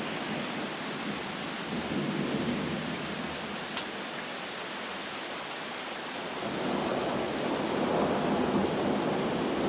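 Thunderstorm: rain falling steadily while thunder rumbles, swelling briefly about two seconds in and growing louder from about six and a half seconds on.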